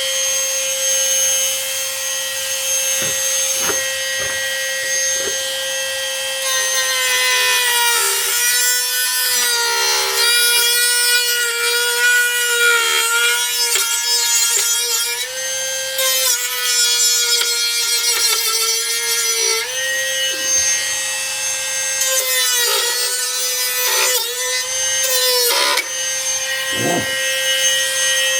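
Electric power tool cutting fiberglass: a steady high motor whine whose pitch sags each time the blade bites, with a rasping cut, in two long spells of cutting.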